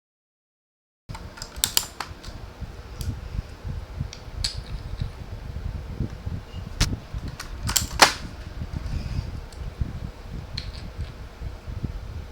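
Irregular sharp plastic clicks and clacks from a K28 mechanical keyboard being handled and worked on for cleaning, over a low rumbling handling noise. The sound starts about a second in, and the loudest click comes about eight seconds in.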